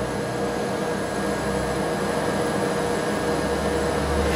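Steady hum of kitchen machinery, a continuous whir with a few fixed tones, and a low rumble swelling near the end.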